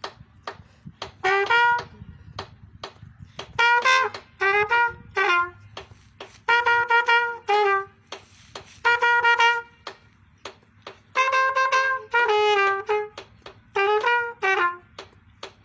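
Trumpet playing a melody in short phrases of clipped notes, stepping up and down in pitch, with pauses between the phrases.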